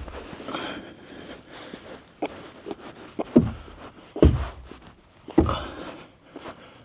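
A few scattered knocks and clicks, with three louder dull thumps in the second half.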